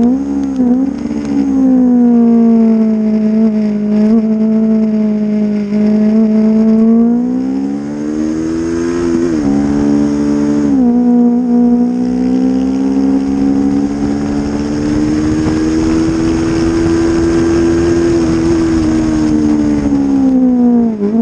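Honda CB500 racing motorcycle's parallel-twin engine heard onboard at speed, its pitch rising and falling with the throttle, with a few sharp dips as gears change.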